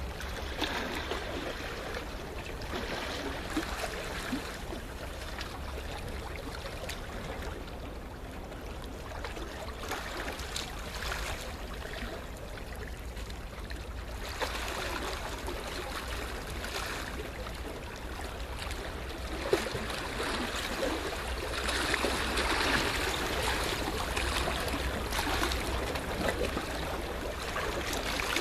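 Small sea waves washing and trickling on a shore, the wash swelling and fading every few seconds and loudest a little past the middle.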